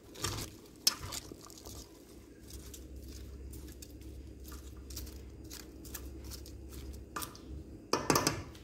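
Two wooden spatulas tossing chopped salad vegetables in a stainless steel bowl: irregular rustling and soft crunchy squishing of the leaves, with occasional clicks of the wood against the bowl. A quick run of louder strokes comes near the end.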